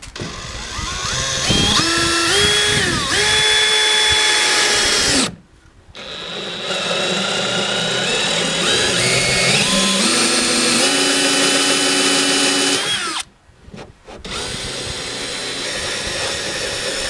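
Cordless drill with an auger bit boring a hole through the wall of a plastic stock tank. The motor whine steps up and down in pitch as the trigger is eased, in three runs, with short stops about five seconds and about thirteen seconds in.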